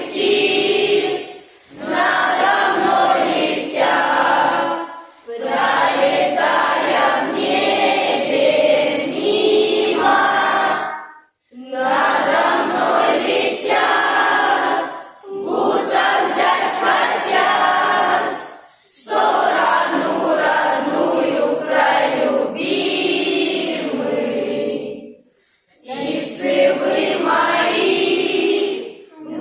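A choir singing a song in phrases of a few seconds each, with brief breaks between the lines.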